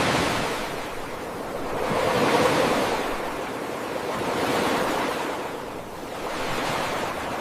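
Rushing noise that swells and ebbs in slow surges, with no tune or voice.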